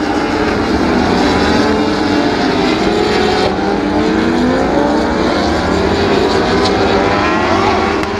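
A pack of World Superbike racing motorcycles passing at high revs, several engine notes overlapping and sliding up and down in pitch as the bikes go by.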